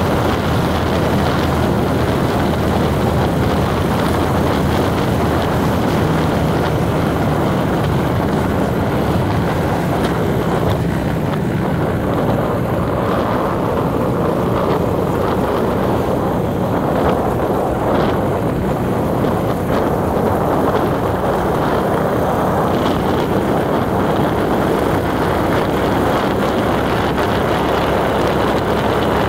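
Steady engine and road noise of a vehicle driving along at an even pace, with a low engine hum under a continuous rush of tyre and wind noise.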